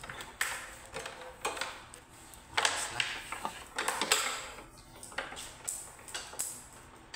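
A microphone cable with a metal plug being swung and shaken, giving irregular clicks and short swishes, the loudest a little under three seconds in and again about four seconds in.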